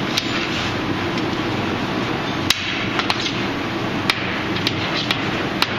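Irregular, sharp hammer knocks on steel, about eight of them, over a steady mechanical hum.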